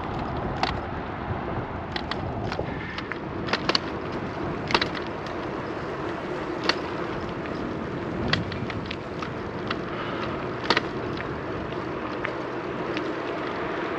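Bicycle rolling along pavement: steady tyre and wind noise, with a sharp click or rattle every second or two at uneven intervals as the bike goes over bumps.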